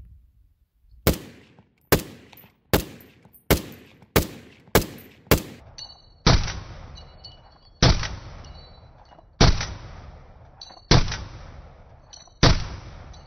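DSA Para FAL 16-inch Congo rifle in 7.62×51mm fired semi-automatically: a quick string of seven shots about two-thirds of a second apart, then five slower shots about a second and a half apart, each with a short echoing tail. The rifle cycles every round without a malfunction.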